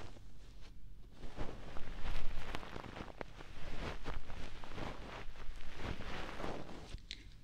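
Fingers rubbing and scratching at the ears of a binaural ASMR microphone in an ear-cleaning routine: an irregular run of soft rustling strokes with a few small clicks.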